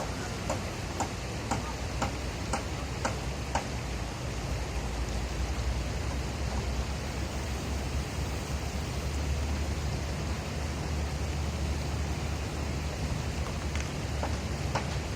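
Steady rushing outdoor noise with a low rumble, with a run of sharp ticks about two a second over the first few seconds and a few more near the end.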